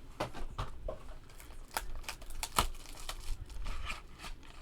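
Trading card box packaging being unwrapped and torn open by hand: a run of irregular crinkles, crackles and snaps.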